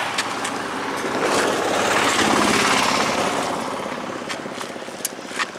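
A motor vehicle passing on the road close by: its engine noise swells up, peaks about halfway through, then fades away. A few light clicks sit on top, the clearest near the end.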